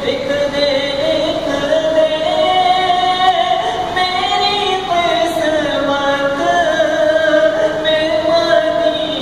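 A man singing an Urdu naat solo and unaccompanied, drawing out long held notes that slowly rise and fall in pitch.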